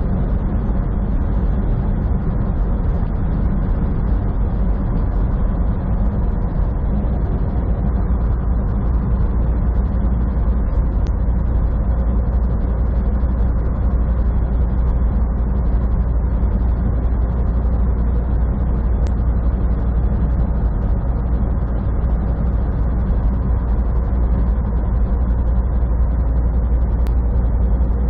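Semi truck's diesel engine and tyre noise heard from inside the cab while cruising at highway speed: a constant, even low rumble.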